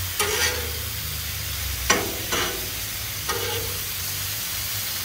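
Calf liver and onions sizzling on a Blackstone steel flat-top griddle. A metal spatula scrapes and clinks against the griddle top about four times as the slices are turned, some strokes leaving a short ring.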